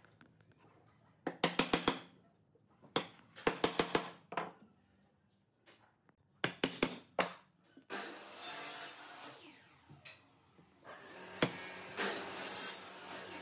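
Wooden mallet knocking a pine rail down onto the ends of a row of slats, in quick clusters of sharp taps. From about eight seconds in come stretches of steadier scraping noise.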